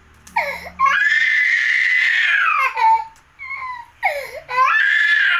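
Baby crying while being massaged: a long high-pitched wail about a second in that rises and falls, a few short sobs, then another wail near the end.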